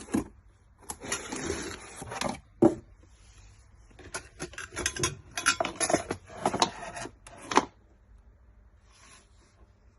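Handling noises: hard objects clicking, knocking, rubbing and clattering in irregular bursts, which stop near the end.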